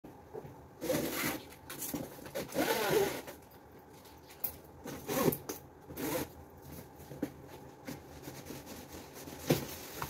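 White plastic packing straps being pulled off a cardboard fridge carton, rasping and scraping against the cardboard in several short pulls. A sharp knock comes near the end.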